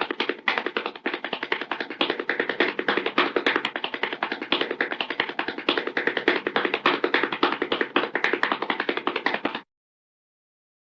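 Hanna-Barbera cartoon sound effect: a fast, dense run of taps that cuts off suddenly near the end.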